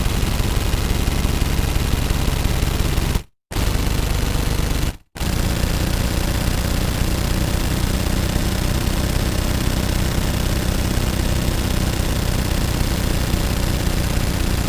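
Automatic gunfire in long continuous bursts of rapid shots, broken by two short pauses: one about three seconds in and another about five seconds in.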